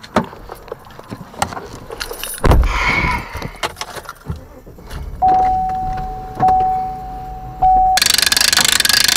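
Keys and truck-door handling with scattered clicks and a loud burst about two and a half seconds in, then a steady chime tone in the pickup's cab sounding three times. Near the end comes the loud, rapid clicking of a boat-trailer hand winch's ratchet as it is cranked to pull the boat onto the trailer.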